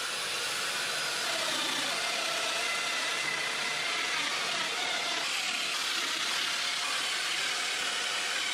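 Festool Domino joiner running as it plunge-cuts mortises into the edges of red oak boards, its dust extractor drawing chips through the hose: a steady motor whir with a rushing hiss.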